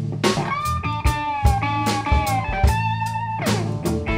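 Background music: a blues-rock track with a melodic guitar line over a steady drum beat and bass.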